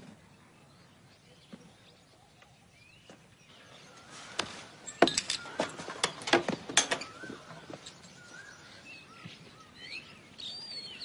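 Birds chirping in the background. Between about four and seven seconds in comes a run of sharp knocks and clatters, the loudest sound here.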